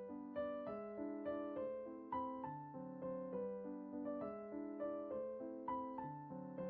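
Background piano music: a gentle melody over soft chords, notes struck at a steady, unhurried pace.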